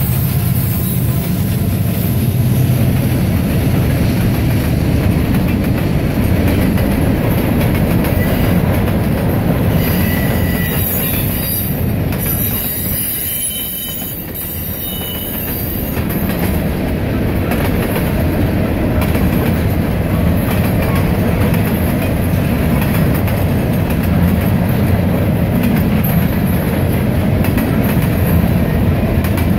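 Freight train passing close. The diesel locomotive's engine drone fades in the first few seconds, then a long string of freight cars rolls by with a steady rumble of wheels on the rails, easing briefly about halfway.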